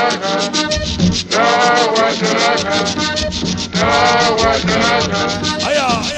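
Cumbia played through a sound system: a guacharaca scrapes a fast, steady rhythm under repeated melodic guitar phrases, with a bent note near the end.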